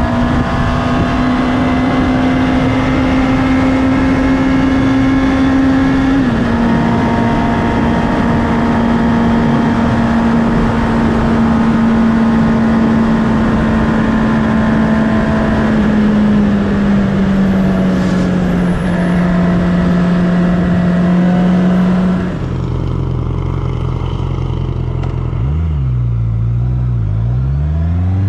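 2019 Honda CB650R's inline-four engine running at steady cruising revs with wind noise, with one quick gear change about six seconds in. About 22 seconds in the throttle closes and the engine falls to low revs, with a few short rises and falls in pitch near the end.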